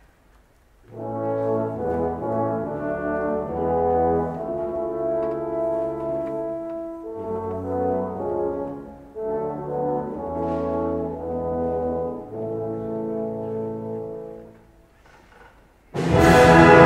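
Orchestral brass playing a slow, soft chorale in held chords, phrase by phrase with short breaks. Near the end the full orchestra comes in loudly.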